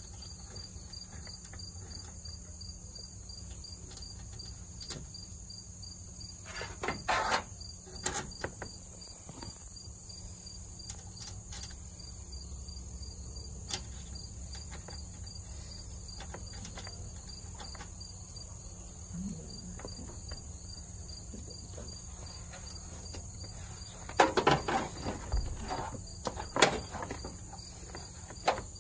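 Two short spells of clicking and metal-on-metal tool noise as a ratchet and hands work the cable nuts on a starter solenoid's terminals, the first about seven seconds in and the louder one near the end. Under it runs steady, pulsing insect chirping and a low hum.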